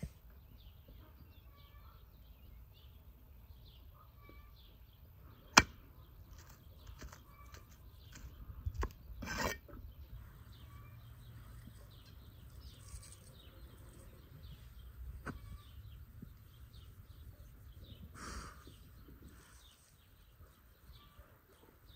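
Faint bird chirps over a low rumble, broken by one sharp knock about five and a half seconds in, a brief louder rustle of handling around nine seconds, and a lighter tap near fifteen seconds.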